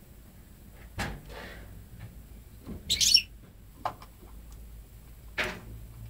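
Goldfinch × canary hybrid (mule) giving a single short, high call about three seconds in, the loudest sound, amid a few scattered short knocks and clicks from inside the cage.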